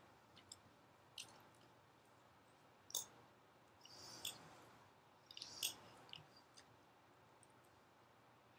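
Mostly quiet room with a few faint clicks and two short scrapes of a fork against a plate, the scrapes about four and five and a half seconds in.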